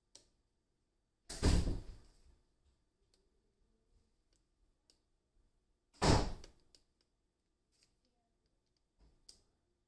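Two dull handling thumps, about four and a half seconds apart, with faint clicks between them as the DBPOWER DJS90 jump starter pack is handled and its buttons pressed.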